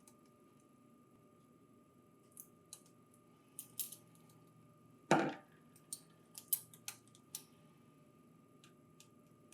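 Scattered light clicks and taps of small metal and plastic parts being handled as the mounting bracket is removed from a printer hard disk, with one louder knock about five seconds in.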